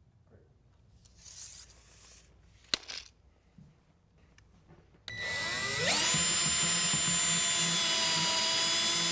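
Cordless drill driving a GRK truss head screw through a window's vinyl nail fin. About halfway through, the motor whines up to speed, rising in pitch for about a second, then runs steadily.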